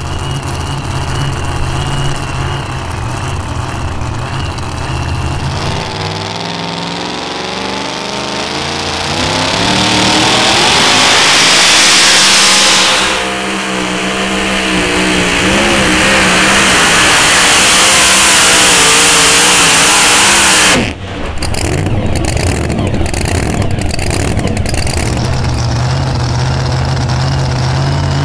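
Supercharged V8 of a super modified 2WD pulling truck idling, then going to full throttle about six seconds in and rising in pitch as it pulls the sled. It dips briefly about thirteen seconds in, runs flat out, and cuts off abruptly a little past twenty seconds, leaving a lower engine sound.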